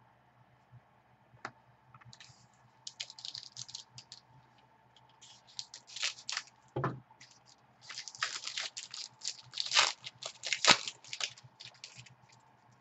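Plastic card-pack wrappers and sleeves crinkling and tearing as trading-card packs are opened and cards handled: a run of irregular crackles and rustles, busiest in the second half, with one soft knock just past the middle.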